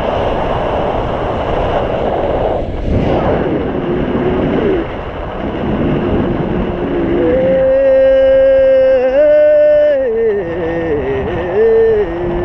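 Wind rushing over the microphone of a paraglider in flight. About halfway through, a man's voice joins in, singing long held notes that step up and down in pitch.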